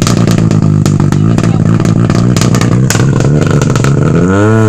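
Rally car engine running steadily while the car sits stuck in a roadside ditch, with sharp clicks and clatter over it. Near the end the revs rise and fall twice as the car is pushed to get it out.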